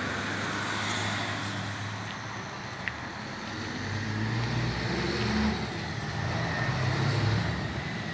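Road traffic: a car engine passing by, swelling about four seconds in and again near the end, over a steady background hum. A single short click about three seconds in.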